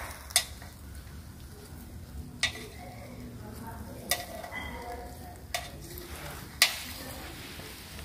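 Metal kebab skewers clinking against the steel charcoal mangal as they are laid across it: about five sharp clicks, the loudest near the end, over a steady low hiss.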